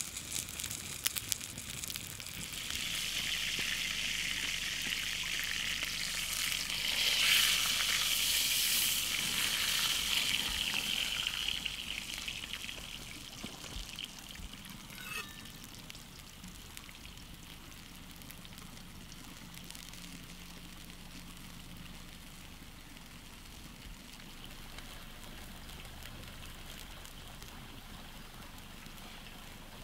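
Wood campfire crackling, then a steady sizzling hiss that swells for a few seconds around the middle before dying down to a faint, even fire noise with a few small pops.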